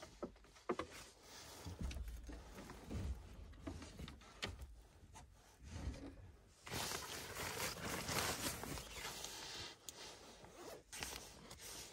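Sleeping bag fabric rustling as it is pulled and rearranged, with a few light knocks and taps in the first half. The rustling grows louder and denser for a couple of seconds about seven seconds in.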